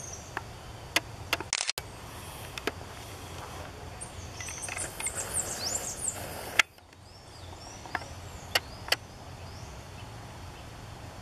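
Scattered sharp snaps, single and spaced apart, with the loudest about six and a half seconds in, over a steady woodland background with birds chirping in the middle.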